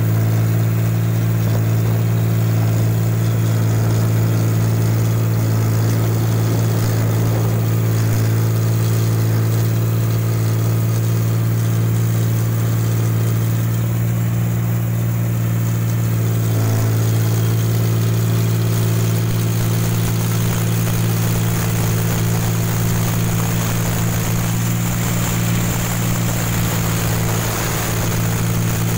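Rice combine harvester running steadily, heard from on top of the machine: a loud, constant engine drone that does not change in pitch.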